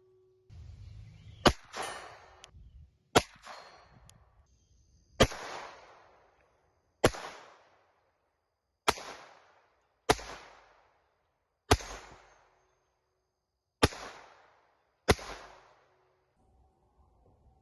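Mauser Model 1910 blowback pocket pistol firing nine single shots, one every one to two seconds, each followed by a short ringing echo.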